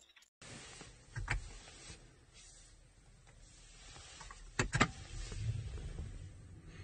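A few sharp clicks of car controls in a quiet BMW X5 E70 cabin: one about a second in, then two close together about four and a half seconds in, as the ignition comes on. A low hum of the car's systems swells just after.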